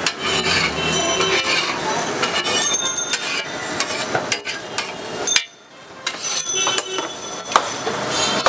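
Metal spatula clinking, tapping and scraping on a large flat iron griddle, with sharp ringing clicks over busy street noise. The sound drops away briefly a little past halfway.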